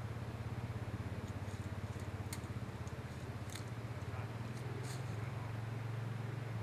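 An engine running steadily at idle: a low pulsing drone. A few short high clicks stand out over it, about two, three and a half and five seconds in.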